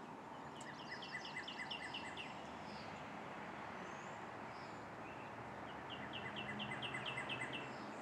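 Songbird singing two runs of rapidly repeated notes, about five a second, one near the start and one near the end, over steady background noise.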